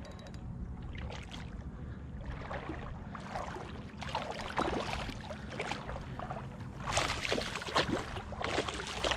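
A small hooked snook splashing at the surface of shallow water as it is played on the line, in irregular splashes that come more often and louder in the second half.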